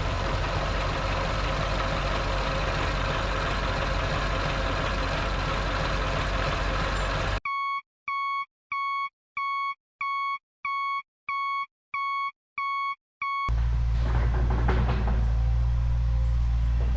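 A construction vehicle's engine running steadily, cutting off abruptly about seven seconds in to a reversing alarm: about nine evenly spaced high electronic beeps, roughly one and a half a second, with total silence between them. The engine running starts again abruptly near the end.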